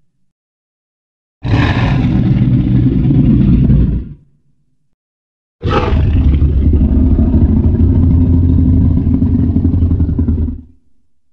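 Two deep, rumbling roars from a composite T. rex sound effect layered from film and game creature sounds. The first is short, about two and a half seconds. The second starts about a second and a half after the first ends and lasts about five seconds. Each starts suddenly and fades out at the end.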